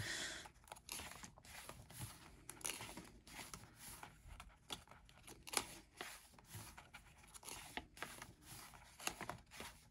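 Pages of a softcover album photo book being turned one after another by hand: a string of quiet paper rustles, flicks and slides.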